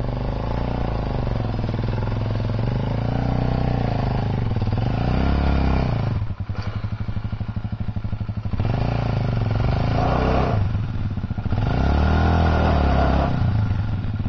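Kawasaki Super Sherpa's 250 cc single-cylinder four-stroke engine running under way on a dirt trail, revs rising and falling with the throttle. The throttle is shut for a couple of seconds about halfway through, leaving a slow pulsing exhaust beat, and is shut again briefly a little later.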